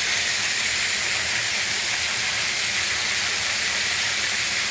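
Steady hiss of falling water from a waterfall, an even rush with no breaks.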